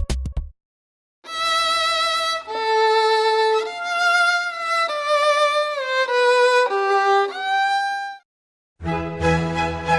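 Solo violin playing a slow melody with vibrato, its notes stepping downward over about seven seconds. Just before the end a different piece of music with a heavy bass starts.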